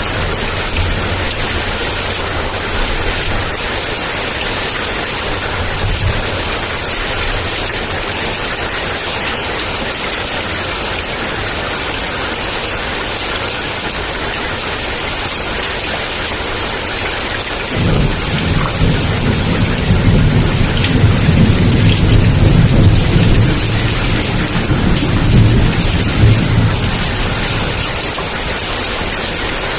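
Heavy rain pouring steadily. A low rumble of thunder rolls in a little past the middle and lasts several seconds before fading.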